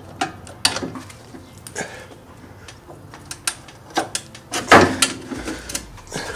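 Scattered metal clinks and knocks of hand tools and car parts being handled during suspension work, at uneven intervals, with a louder clatter a little before the end.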